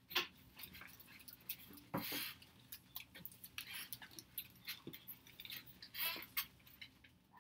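Quiet classroom activity: scattered soft clicks, knocks and rustles from students working at their desks, with two louder rustles about two and six seconds in.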